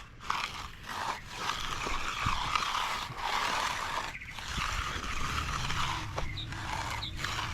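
A hand finishing tool scraping across wet concrete in long strokes, with short breaks between passes.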